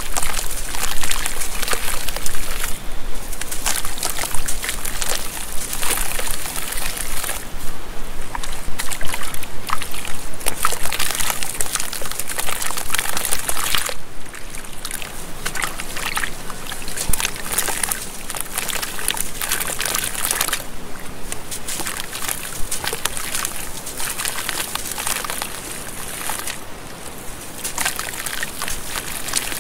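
Hands crumbling a wet sand-and-charcoal block into a tub of water and squeezing and sloshing through the soaked mush, with gritty crumbling, splashing and squelching. Louder in the first half, softer squishing in the water after that.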